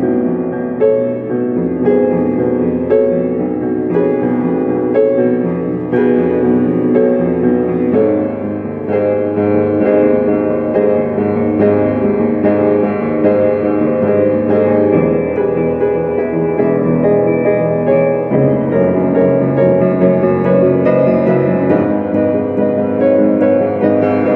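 Piano music: notes and chords played continuously.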